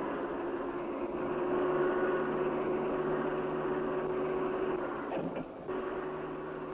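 Crane hoist motor running with a steady whirring hum as it lowers a steel bridge deck section on its slings, with a short break in the hum about five seconds in.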